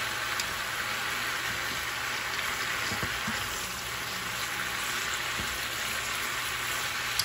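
Vegetables sizzling steadily as they are stir-fried in a frying pan and tossed with wooden chopsticks, with a few faint knocks about three seconds in.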